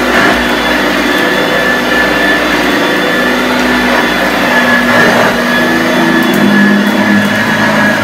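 1981 Hoover Junior U1104 upright vacuum cleaner running steadily on a carpet, its motor giving a steady hum with a high whine above it as the beater bar beats the carpet. The pitch dips slightly about two-thirds of the way in.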